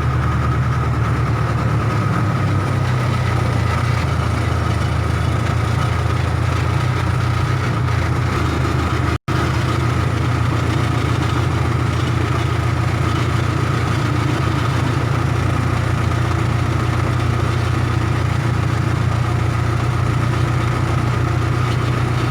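Case 580K backhoe's diesel engine running steadily at an even speed, with a steady high whine over the low engine note.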